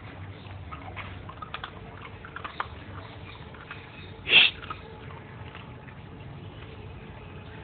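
Mixed-breed dog sniffing at and eating scraps off a tiled floor: scattered small clicks, then one loud, short burst of noise about four seconds in.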